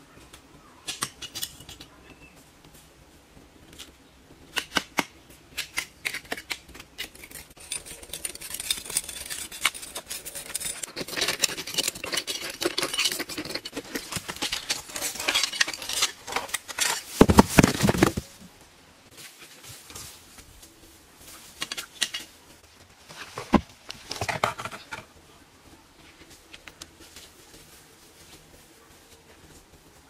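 Knocks, scrapes and rustling of someone working by hand among rock boulders in long grass, busiest in the middle, with one heavy thud about 17 seconds in and a few sharper knocks a little later.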